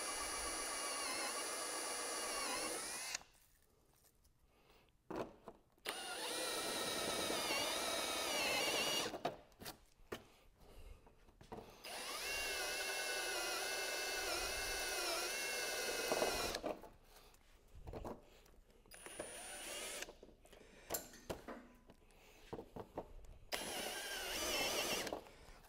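Power drill turning a step drill bit into plastic motorcycle tail bodywork, opening holes to 20 mm. It runs in three stretches of a few seconds each, then in several short bursts near the end. The motor's whine dips in pitch as the bit bites into the plastic.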